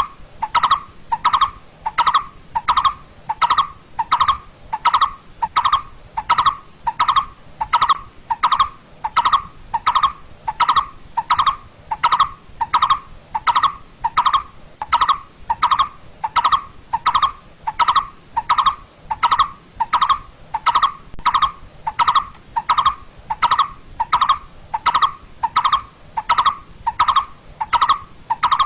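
Coppersmith barbet calling: a single-pitched 'tuk' note repeated at an even, steady rate of about three every two seconds.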